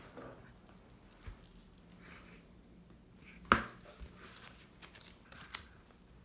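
Handling of a round cardboard gift box and its lid: light rustling and small knocks, with one sharp knock about three and a half seconds in as the lid is lifted.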